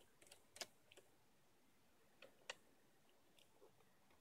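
Faint, scattered clicks from a small tool working at the edge of an HP Pavilion dv6 laptop's screen assembly, with two sharper clicks about half a second and two and a half seconds in.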